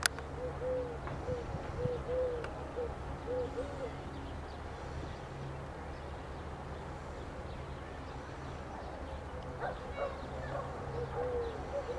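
Outdoor field ambience: an animal calling in a run of short, repeated notes on one pitch during the first few seconds and again near the end, over a low steady hum, with a sharp click right at the start.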